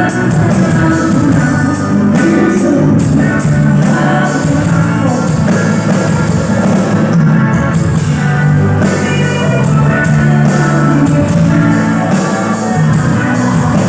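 Live rock band playing through a PA, electric guitars, bass and drums with a voice singing over them.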